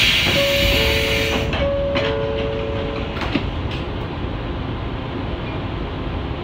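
A 115-series electric train lets out a loud burst of air hiss. A two-tone door chime sounds twice, with a few clunks, over the train's steady low rumble.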